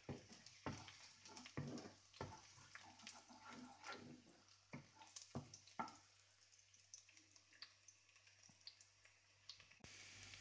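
Wooden spatula stirring chopped garlic frying in olive oil in a nonstick pan: light taps and scrapes against the pan over a faint sizzle, most of them in the first half.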